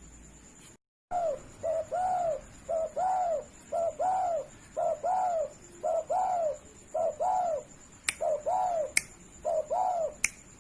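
Spotted dove (derkuku) cooing over and over: a run of arched coo notes, often a short note followed by a longer one, starting about a second in. A few sharp clicks come near the end.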